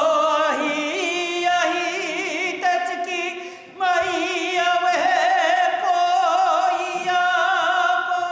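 A woman singing a Māori mōteatea chant in long held notes with a wavering vibrato, pausing briefly for breath about three and a half seconds in.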